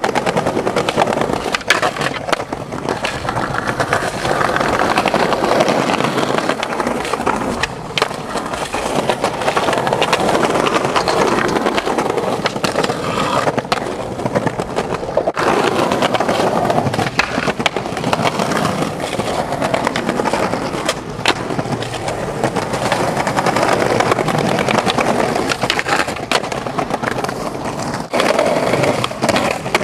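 Skateboard wheels rolling over stone paving slabs: a steady rumble broken now and then by sharp clacks of the board.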